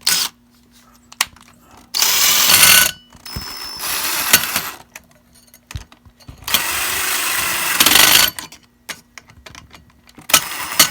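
Several loud, brief bursts of handling noise as electrical cable is worked through a cable connector into a light fixture's junction box.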